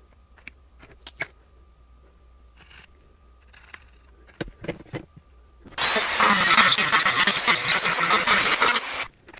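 Light handling clicks on a plastic box, then, from a little past the middle, a Dremel rotary tool grinding a notch into the thin rim of a plastic Tupperware container for about three seconds, stopping abruptly near the end.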